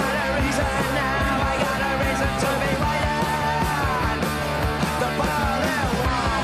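A punk rock song playing: a full band with a steady drum beat and a singing voice.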